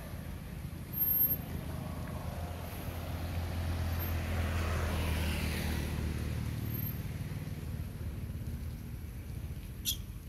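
Low rumble of a motor vehicle passing, swelling a few seconds in and fading again, with a single sharp click near the end.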